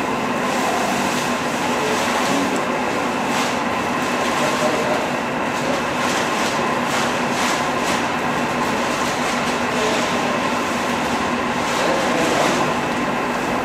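Steady mechanical hum and rush of brewery plant running, with short rustles and clatters scattered through it as malt is tipped from sacks into a steel hopper.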